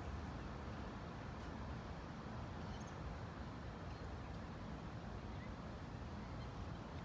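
Quiet outdoor ambience: a steady low rumble and a constant high-pitched whine, with a few faint chirps.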